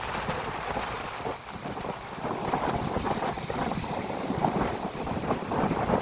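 Strong wind gusting and buffeting the microphone, mixed with waves breaking on the beach; the gusts grow louder about two seconds in.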